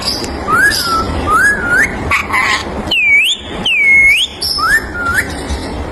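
Young Indian ringneck parakeet whistling a string of short swooping notes. Two longer U-shaped whistles dip and rise again in the middle, and two short rising chirps come near the end.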